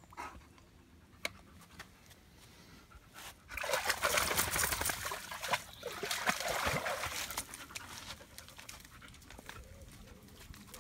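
Black Labrador panting while standing in a shallow stream, then splashing loudly through the water as it wades for a few seconds, starting about four seconds in.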